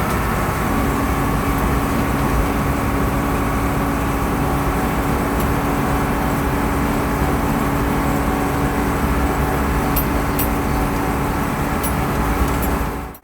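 Farm tractor engine running steadily with a dense rattling rumble and a few held tones, cut off abruptly at the end.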